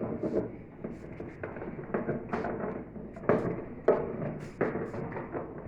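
Irregular sharp knocks and clicks of a tool working an agitator puller on the agitator of a Consul Facilite washing machine, as it is fitted and tightened to force the agitator off its shaft.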